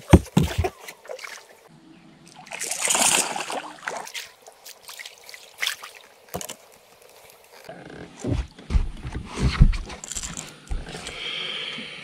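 A hooked largemouth bass splashing at the water's surface beside a bass boat as it is fought in and landed, with sharp knocks at the start and a cluster of low thumps against the boat later on.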